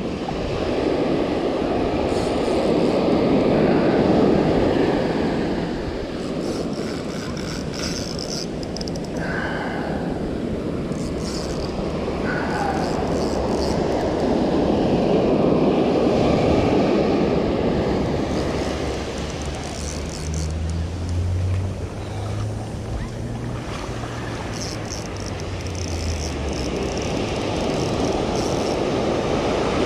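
Ocean surf breaking and washing in, swelling loud and falling back roughly every twelve seconds.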